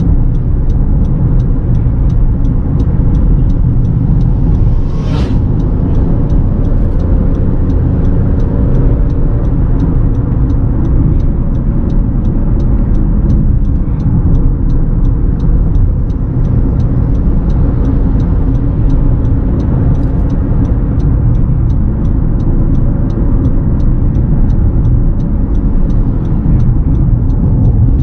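Steady low rumble of a 2018 Honda CR-V Turbo Prestige on the move at about 60 to 75 km/h, mostly road and tyre noise with its engine underneath. Its note rises a little as the car gathers speed, and there is a brief hiss about five seconds in.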